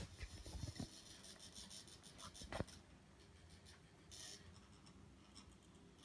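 Faint rubbing and scratching from a phone being handled, with a few small clicks and one sharper click about two and a half seconds in, over the low hum of a running mini ceiling fan.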